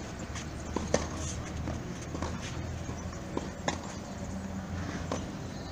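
Tennis rally on a clay court: sharp pops of racket strikes and ball bounces every second or so, the two loudest hits about a second in and near four seconds in.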